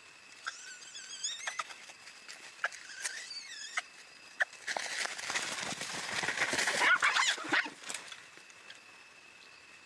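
High, wavering animal squeaks with scattered clicks, then a louder scuffling stretch with sharp squeals from about five seconds in, lasting about three seconds.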